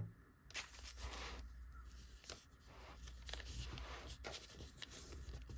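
A sharp click right at the start, then a fountain pen with a steel Schmidt nib writing on thin Tomoe River paper: a run of short, soft pen strokes with brief pauses between them, beginning about half a second in.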